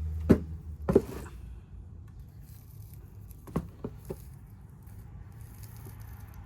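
A few sharp taps and knocks from handling: two strong taps within the first second, then a quicker run of three or four lighter taps about three and a half seconds in, with faint rustling between.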